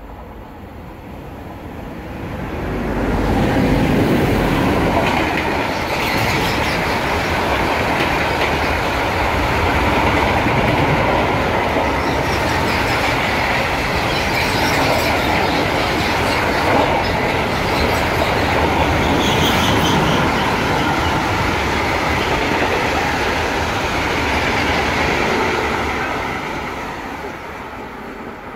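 Electric freight train running through: the locomotive's approach swells over the first few seconds, then a long train of hopper wagons rumbles and clatters past steadily before fading near the end.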